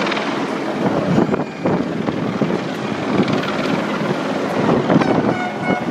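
A large outdoor crowd chattering: a steady hubbub of many voices.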